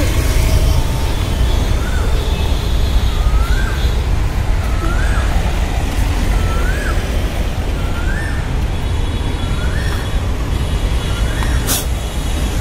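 Steady low rumble of street traffic, with a bird repeating a short rising call about every one and a half seconds.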